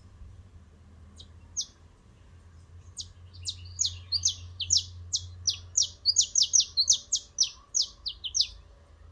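Canary singing: a run of quick, sharp chirps, each sliding down in pitch. A few come about a second in, then they follow thick and fast from about three seconds and stop shortly before the end.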